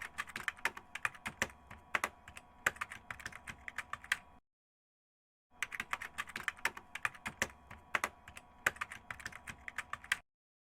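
Rapid clicking like typing on a keyboard, in two runs of about four seconds each with a pause of about a second between.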